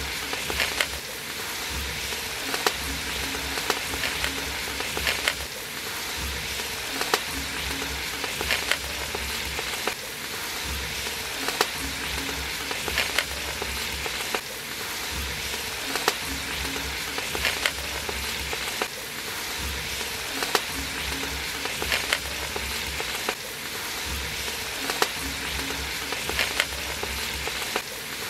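Large aluminium pot of spiced biriyani liquid boiling hard over a wood fire: a steady sizzling, bubbling hiss with scattered sharp pops.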